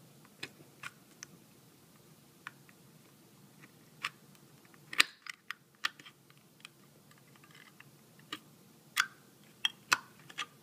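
Small knife blade pressed into the scored bottom of an aluminium drink can, making irregular sharp clicks and snaps as the thin metal gives way along the scored lines. The loudest snap comes about five seconds in, and a cluster of clicks comes near the end.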